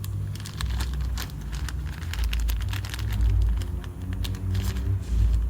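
Brake parts and their packaging being handled: a scatter of light clicks and rustles over a steady low rumble.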